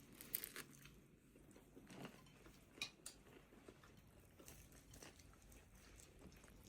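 Faint, scattered clicks and crunches, the sharpest about three seconds in.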